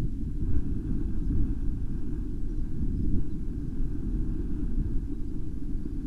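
Wind buffeting an outdoor webcam microphone: an uneven low rumble that swells and dips in gusts.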